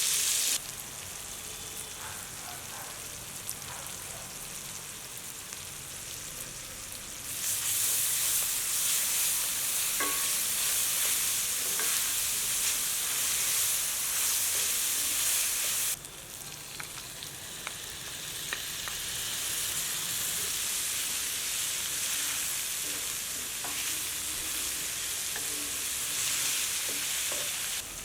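Food sizzling in hot oil in a cooking pan as it is stirred, with scattered small clicks of the spoon against the pan. The sizzle drops and rises abruptly in level a few times.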